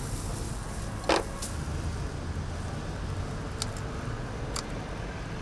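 Steady low rumble of street traffic, with one sharp knock about a second in and a few faint clicks later.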